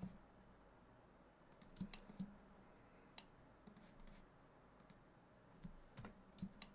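Faint, irregular clicks of a computer mouse and keyboard keys, a dozen or so scattered through the quiet, a few bunched together about two seconds in and again near the end.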